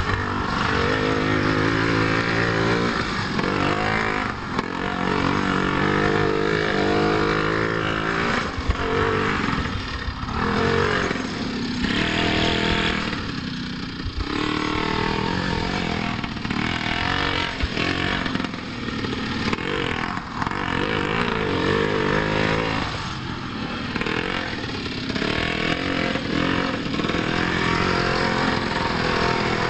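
Small two-stroke petrol engine of a 1/5-scale Primal RC monster truck revving up and down as it is driven hard, its pitch rising and falling again and again with the throttle.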